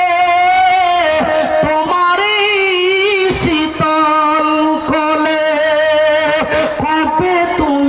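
A man singing a devotional nazm into a microphone in a drawn-out, melodic style, holding long notes that waver in pitch, with short breaths between phrases.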